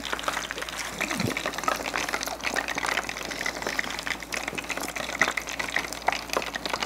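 Hot oil sizzling and crackling in a tabletop deep fryer as pieces of fugu karaage fry: a steady, dense run of fine pops and fizzing.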